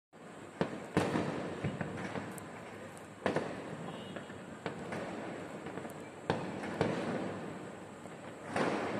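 Fireworks going off: about seven sharp bangs, each trailing a rolling echo, with crackling in between.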